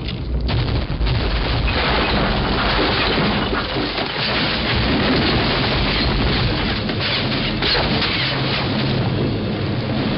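Film sound effect of the giant rolling boulder: a dense, loud rumble with crunching, crackling debris and scattered heavy impacts.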